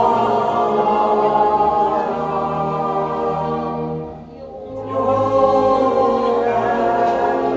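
A Hungarian folk choir singing together in long, held notes. The singing drops away briefly about four seconds in, then comes back.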